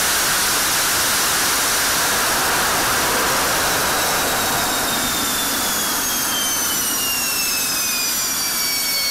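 F-16 Fighting Falcon jet engine on a test stand running at full afterburner with a steady roar. About four seconds in the afterburner shuts off and a whine falls steadily in pitch as the engine slows down.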